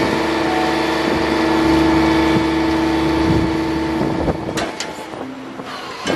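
Truck-mounted hydraulic crane running as its boom is raised: the truck's engine and hydraulic pump give a steady drone with a held whine, which cuts off about four seconds in when the boom stops, followed by two sharp clicks.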